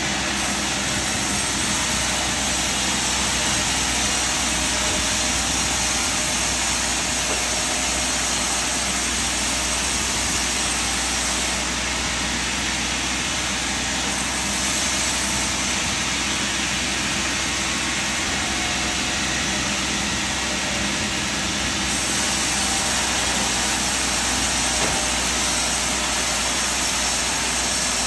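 Sawmill machinery running steadily: a continuous engine-like noise with no breaks, changing a little in tone about twelve and twenty-two seconds in.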